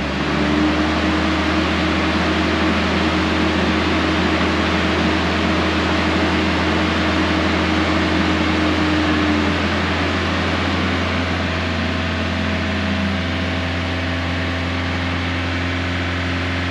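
Jeep Cherokee XJ's 2.5-litre four-cylinder engine held at a steady 2500 rpm on a new Accel performance ignition coil, running very steady with no stumble or misfire.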